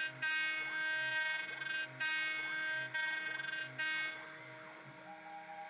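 CNC router spindle whining as a Magnate 796 thread-milling bit cuts threads into a wood nut. The whine drops out briefly about once a second, then fades to a quieter hiss about four seconds in.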